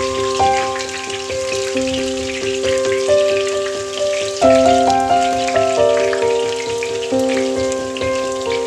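Kebab patties sizzling as they shallow-fry in oil, a steady fine crackle, under instrumental background music of struck notes that each fade.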